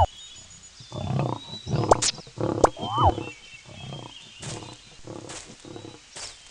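Several short, rasping animal calls between about one and three seconds in, with faint bird chirps behind them.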